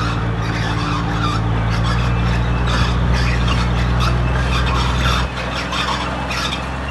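Heavy diesel earthmoving machinery running under load, a deep engine drone with scraping and squealing over it; the low drone drops away about five seconds in.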